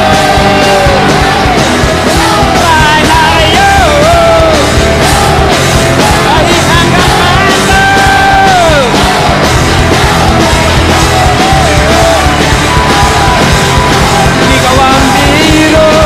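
A live rock band playing loud: several electric guitars and drums, with a singer belting the vocal line into the microphone.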